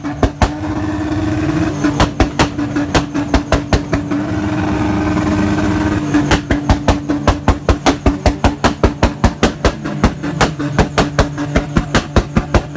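A car engine held at steady high revs, with a fast string of sharp cracks from the exhaust, about three to four a second, coming more regularly from about six seconds in.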